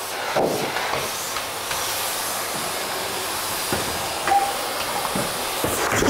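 Canister vacuum cleaner running with a loud, steady hiss.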